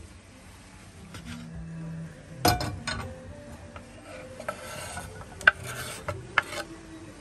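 Kitchen knife working on a wooden cutting board, chopping and scraping, with a loud knock a little before the middle. In the second half, sharp clicks and scraping as the knife pushes sliced sausage off the board into a frying pan.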